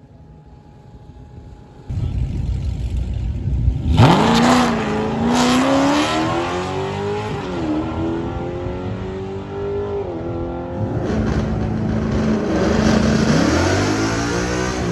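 A muscle car launching down a drag strip at full throttle: the engine winds up hard, and its pitch drops and climbs again at each of about three upshifts as it pulls away.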